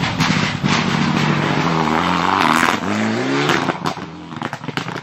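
Rally car at full throttle, its engine revs climbing and dropping back in quick steps as it accelerates, then fading away near the end.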